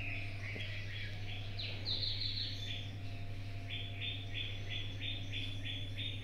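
A bird calling with short repeated chirps: a quick irregular cluster, then a steady run of about three notes a second. Under it runs a steady low mains hum.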